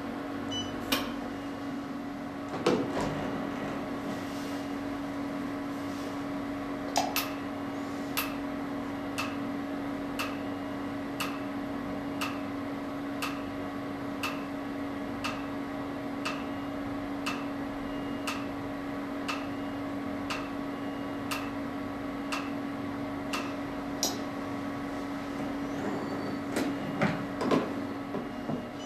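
Q-switched Nd:YAG laser firing at one pulse a second: a sharp click about once a second, starting about seven seconds in and stopping a few seconds before the end, over the steady hum of the running machine.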